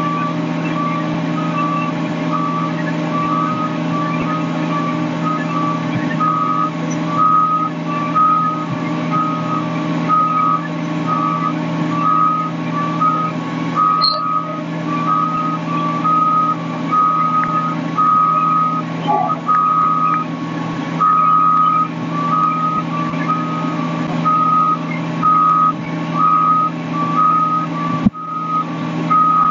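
Fire truck on scene: a diesel engine runs with a steady drone while an electronic warning alarm beeps over and over, alternating between two close pitches.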